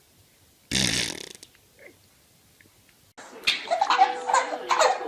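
A baby's fart: one short, loud, sputtering burst about a second in, lasting about half a second. From about three seconds in, a louder stretch of voices and laughter begins.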